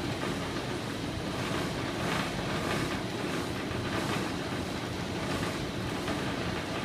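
Boat's engine running steadily under a constant rush of wind and water noise.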